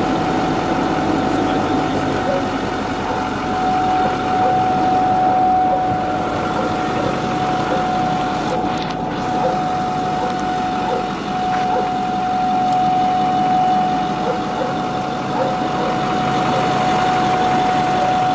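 Ford F-250 pickup engine running at a steady idle, with a steady high-pitched whine held at one pitch over the engine: the strange noise the truck is making.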